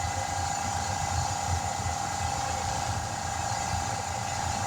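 An engine running steadily at idle, a low uneven rumble with a constant high whine over it.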